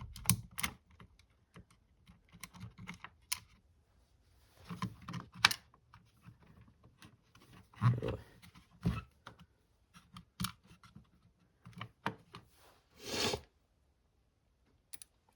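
Scattered small clicks, taps and scrapes of tiny screws, washers and a screwdriver being worked into a small radio's case, with a short rustle near the end.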